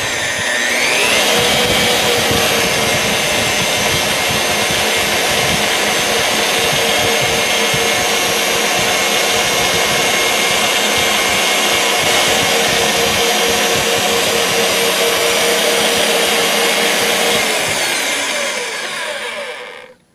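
GARVEE magnetic drill press's brushed motor whining up to speed, then running steadily while its twist bit bores part way into a block of wood. Near the end the motor winds down, its pitch falling as it stops.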